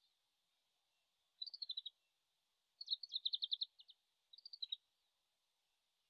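Oriental greenfinch singing faintly at a distance: three short phrases of quick, high twittering notes, the longest a fast run of repeated notes about three seconds in. The song is incomplete, which the recordist takes for a bird still practising its song.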